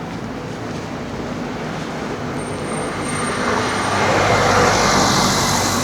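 Street traffic: a road vehicle passing close by, its noise swelling about three seconds in and loudest near the end, over a steady low hum of engines.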